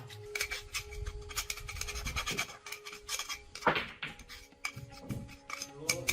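Small metal parts and hand tools clinking, rubbing and scraping, irregularly, with one sharper clank a little past the middle.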